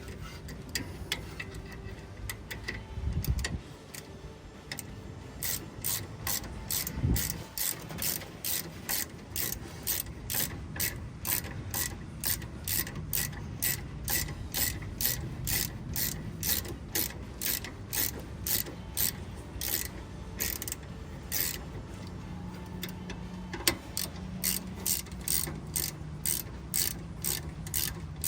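Ratchet wrench clicking in steady back-and-forth strokes, about two a second, as the brake caliper bolts are tightened on a Hummer H2's rear brake. Two dull knocks come before the steady ratcheting sets in.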